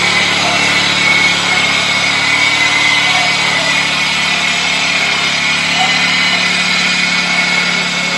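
Honda riding lawn tractor's engine running steadily as the tractor drives off, with a steady high whine over the engine note.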